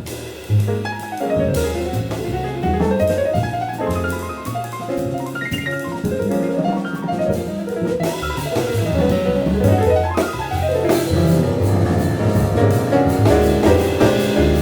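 Jazz piano trio playing: a C. Bechstein grand piano carries the melody and chords over moving bass notes and drum kit. The playing grows somewhat louder about halfway through.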